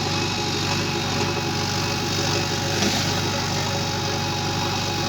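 Diesel engine of a JCB excavator running steadily at low revs.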